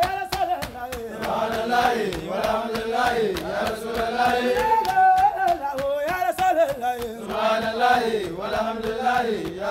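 A group of men chanting an Islamic devotional chant together in unison, their voices gliding between held notes, with steady hand clapping beating time throughout.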